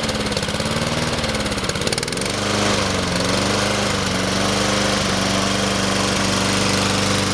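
Honda GCV160 engine on a Honda HRT2162TDA walk-behind mower running at low idle. For about the first two seconds its pitch wavers up and down, the slight revving up and down the owner noted. It then settles into a steadier, slightly louder and lower note.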